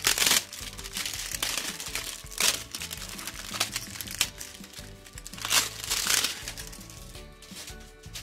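Clear plastic wrapping crinkling in bursts as a new brush cutter cylinder and piston kit is unwrapped by hand, with background music playing. The crinkling comes at the start, again about two and a half seconds in and around five to six seconds in, then dies down.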